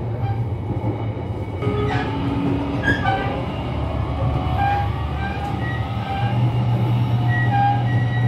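Limited express train running, heard from inside the carriage: a steady low rumble of wheels and running gear that grows a little stronger near the end, with faint short high tones coming and going.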